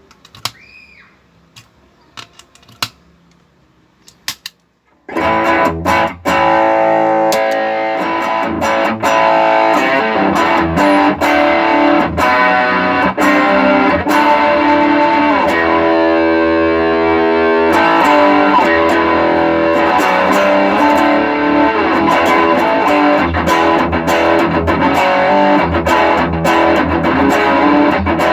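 Electric guitar played through effects pedals and a true-bypass loop switcher during a sound test, with distorted tone. A few faint clicks come first, then about five seconds in the guitar comes in loud with strummed chords and picked notes.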